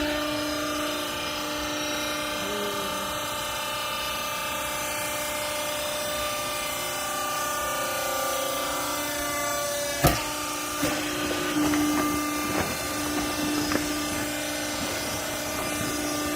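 Hydraulic power unit of a textile compress baler running with a steady hum. About ten seconds in there is one sharp bang, followed by a few seconds of smaller knocks and clatter.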